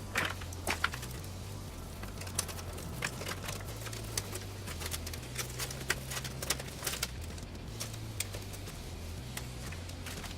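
Scattered light clicks and taps, irregular and a few a second, as of small computer parts and screws being handled, over a low steady hum.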